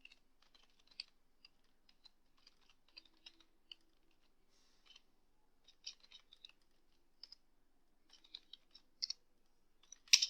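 Typing on a computer keyboard: irregular runs of light key clicks, with a couple of sharper keystrokes near the end.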